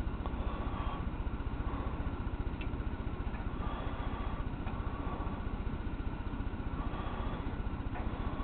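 A toy electric train running: a steady whir of its motor and gears with a fine, even rumble underneath and a few faint clicks.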